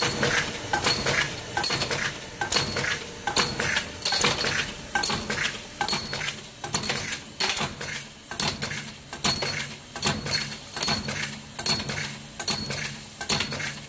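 Automatic 20 mm round steel bar cutting machine running, with sharp metallic clinks about twice a second as short cut pieces of steel bar clatter down the steel chute into a metal drum, over a steady low hum from the machine's motor.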